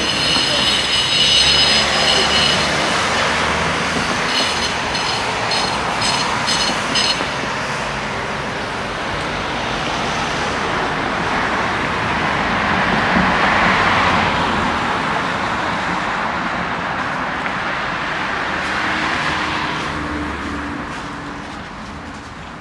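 City street traffic passing, with a high-pitched squeal for the first few seconds that flickers on and off until about seven seconds in. A vehicle passes loudest about halfway through, another just before the end, and then the sound fades.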